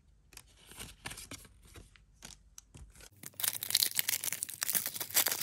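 A few soft clicks of trading cards being handled, then, about three seconds in, the foil wrapper of a Pokémon TCG booster pack being torn open with dense crinkling and tearing, the loudest sound here.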